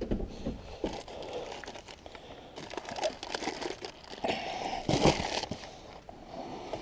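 Crinkling and rustling as things are handled in the back of a van, louder for a moment about four to five seconds in.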